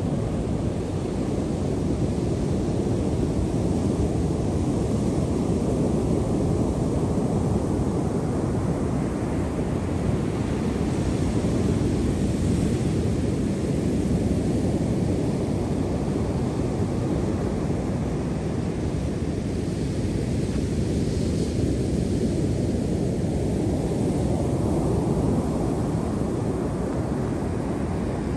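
Ocean surf: a steady, deep rush of waves that slowly rises and falls.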